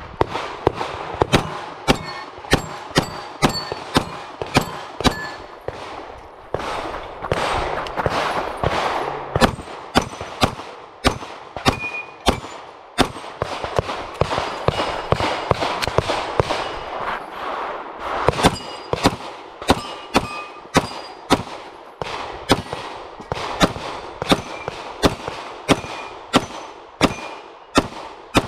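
Walther PDP Compact pistol firing a long string of rapid shots at steel plate targets, often two or three a second with short pauses between strings. Many shots are followed by the brief ring of a steel plate being hit.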